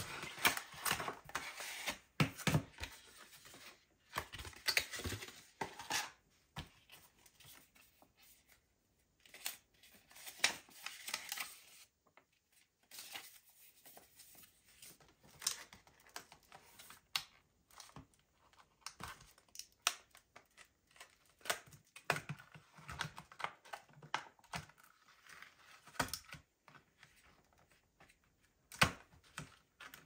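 Packaging being handled: cardboard sliding and rubbing as the box is opened, then a clear plastic clamshell tray crinkling and clicking as it is pried open and a memory module lifted from it. Rustling in bursts with scattered sharp clicks, busiest in the first twelve seconds.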